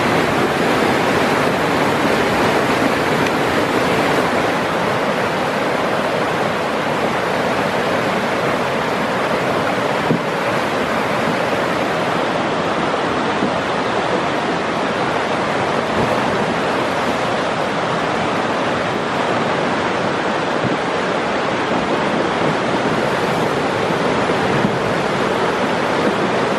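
A river in flood rushing past: fast, churning brown floodwater making a loud, steady rushing noise.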